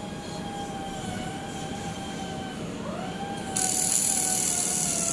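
Air-cooled handheld laser welder running: a steady machine whine, with a tone that rises about three seconds in, then a sudden loud hiss that starts about three and a half seconds in and holds steady as a weld is laid.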